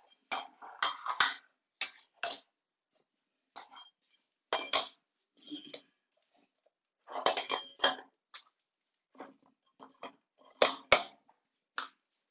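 Hard pieces of flooring material clicking and clattering against each other and the floor as they are handled, in short irregular clusters with pauses between.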